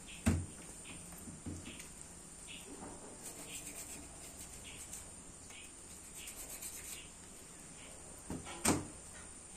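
Knife and raw chicken knocking on a stainless steel worktable during deboning: a sharp knock just after the start, a softer one about a second and a half in, and another sharp knock near the end. Faint short high chirps repeat in the background.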